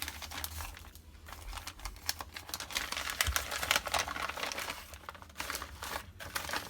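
Wrapping being crinkled and torn open by hand as a small gift package is unwrapped: irregular crackling and rustling, busiest in the middle.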